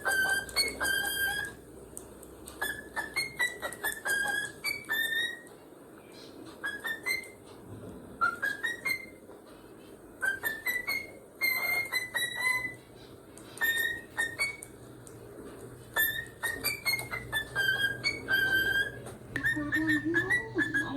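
Cockatiel whistling a tune: runs of clear whistled notes, some gliding upward, in phrases broken by short pauses.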